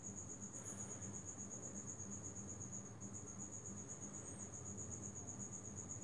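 A cricket trilling faintly: a steady, high-pitched, rapidly pulsing trill with a short break about halfway through.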